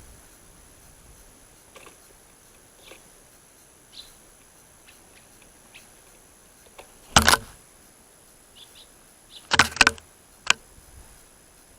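Faint, brief bird chirps at a feeder, broken by a loud sharp knock or clatter about seven seconds in, then a longer clattering burst and one more knock near the end.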